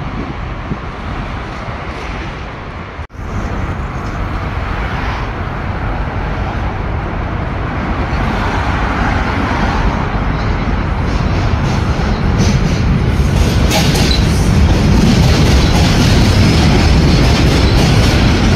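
A New York City subway train running across the steel Williamsburg Bridge, its rumble building as it comes closer, with wheels clicking over rail joints in the later seconds. There is a brief dropout about three seconds in.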